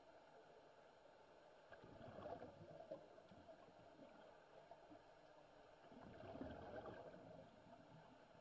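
Faint bubbling of a scuba diver exhaling through a regulator underwater: two bursts of bubbles, each lasting a little over a second, about four seconds apart, over a low steady hiss.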